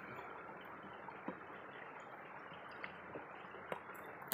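Shallow stream running over rocks: a steady, quiet rush of water, with a few faint ticks.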